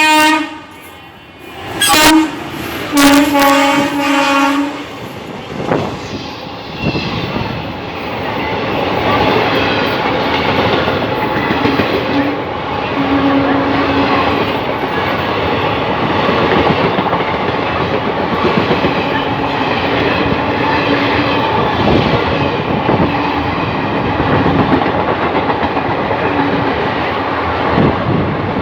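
Indian Railways electric locomotive sounding its horn in three blasts: two short ones, then a longer one about three seconds in. From about six seconds its express train passes at speed, with rolling wheels and clickety-clack over the rail joints.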